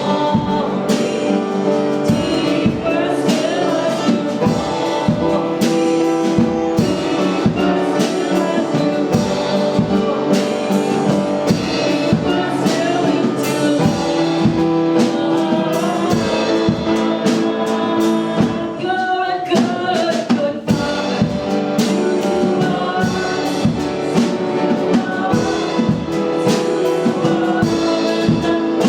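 Live worship band playing with singing, over a steady drum-kit beat, and a brief drop in the music about two-thirds of the way through.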